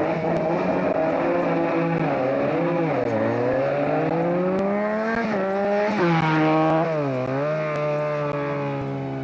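Rally car engine being driven hard. Its pitch rises and falls several times, with a long climb in the middle and a sharp jump and drop about six seconds in, as it goes up and down through the gears.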